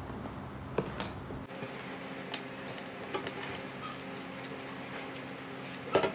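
Light clicks and taps from handling plastic drinking straws and a hot glue gun, over a steady low hum. A sharper clatter comes near the end.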